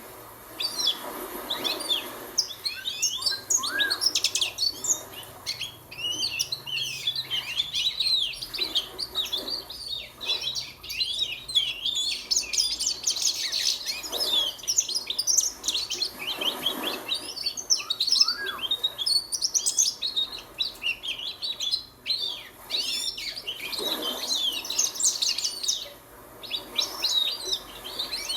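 Young goldfinch practising its song: a long, rambling run of rapid twitters and chirps, almost without a break, with a few lower rising notes here and there. It is a juvenile learning to sing.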